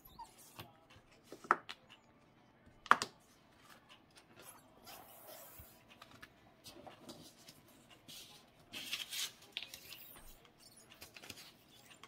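Hands handling a card on a craft table: two sharp clicks in the first three seconds, then soft rustling and sliding of card stock.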